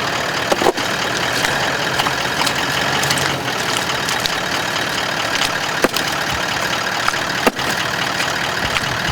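Four-wheel-drive vehicle's engine running steadily, with a few sharp knocks, about one second in and twice near the end.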